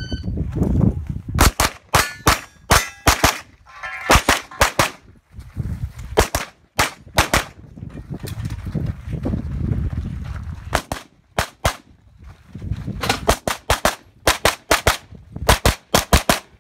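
Rapid pistol fire from an Open-division race gun, shots in quick pairs and short strings with breaks of a second or two between them as the shooter moves between positions. A short electronic shot-timer beep sounds right at the start.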